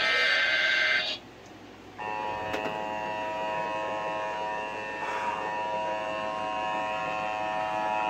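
Emergency Alert System warning played through a TV speaker. The last warbling data burst of the digital header ends about a second in, then after a short gap the steady two-tone EAS attention signal starts and holds.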